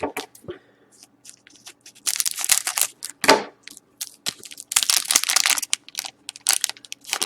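Trading card pack wrapper being torn open and crinkled by hand, in several rustling, crackling bursts of up to about a second each.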